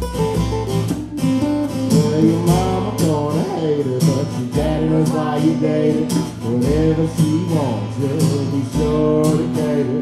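Two acoustic guitars strummed and picked together, with a man singing over them, his voice gliding up and down from about two seconds in.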